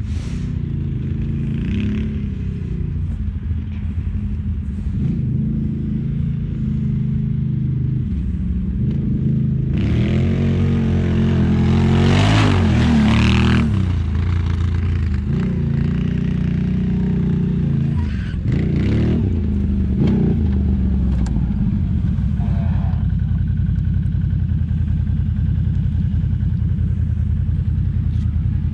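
Off-road vehicle engine running at low revs, revved hard for about four seconds some ten seconds in, with its pitch rising. It is revved again briefly a few seconds later, then settles back to a steady run.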